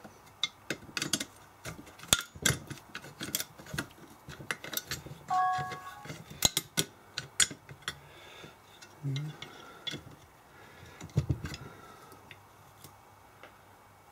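Screwdriver working at the back of a BMW 180A car alternator, irregular metal clicks, taps and clinks as its rectifier and brush-holder parts are pried at. A short metallic ring about five seconds in.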